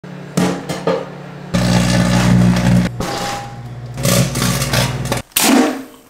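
Microwave oven running with a steady low hum that cuts in and out, overlaid by several sharp pops and bursts of crackling from items cooking inside.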